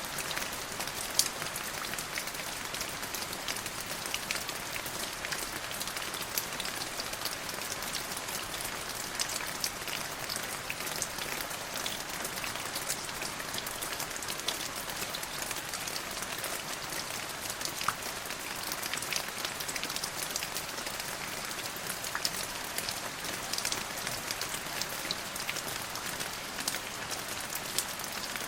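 Steady rain falling, a constant hiss with many small drop ticks on a hard surface.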